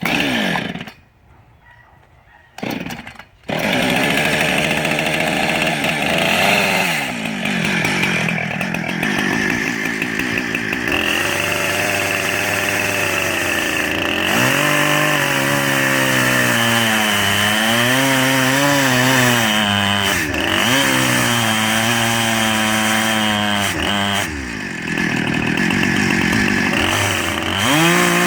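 Small chainsaw firing briefly twice, then starting and running at full throttle as it rips along a cedar log in a homemade Alaskan mill. Its engine pitch repeatedly sags and recovers under the load of the cut. The saw has a crosscut chain rather than a ripping chain.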